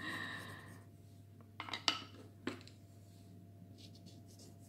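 A light clink of something hard that rings on a few pitches and dies away within about a second, followed by a few soft clicks and taps.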